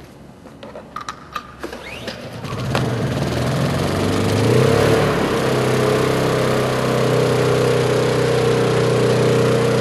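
Honda EU2000i inverter generator being started: a few clicks and rattles, then the engine catches about three seconds in, speeds up and settles into steady running. It is running on natural gas fed straight from a balloon through a regulator.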